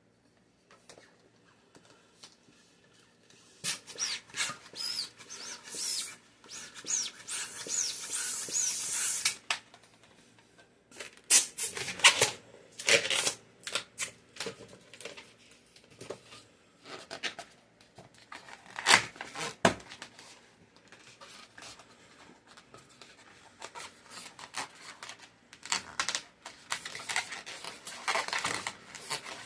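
Latex twisting balloons being pumped and handled: rushes of air and rubbery rubbing with squeaky glides, then several sharp cracks and snaps.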